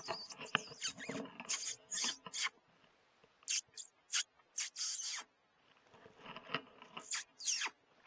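Fox predator call sounding high, thin squeaks and squeals in short clusters with brief pauses, with a few falling squeals near the end: a distressed-rodent call used to draw foxes in.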